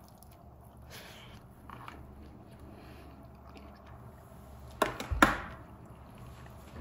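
Quiet chewing of a croissant sandwich, with two loud, sharp lip smacks in quick succession about five seconds in.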